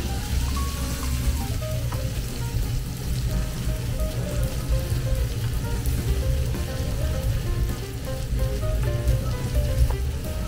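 Chopped vegetables and meat sizzling steadily as they are stir-fried in a small frying pan over a gas burner, stirred with a wooden spatula. Background music with a light melody plays under the frying.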